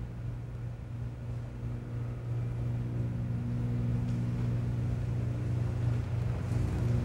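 A steady low hum with a few held tones above it, slowly growing louder.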